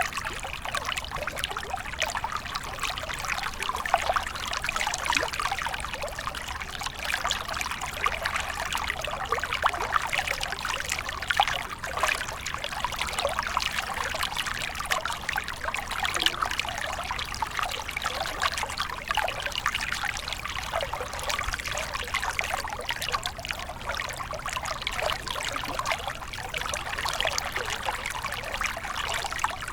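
Flowing water trickling steadily, full of small splashes and bubbling.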